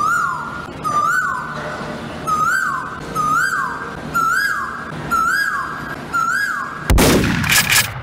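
A bird's whistled call repeats about once a second, each call rising, holding, then sliding down. About seven seconds in, a loud gunshot blast cuts across it and rings on for about a second.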